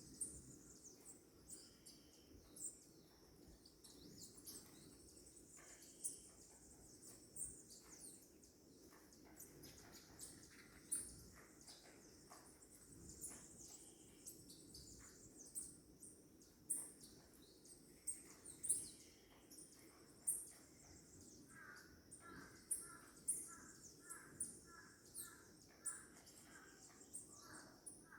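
Canarinho (canary) birds chirping and singing faintly, with many short, high chirps throughout; about three quarters of the way in, a quick run of repeated lower notes joins them.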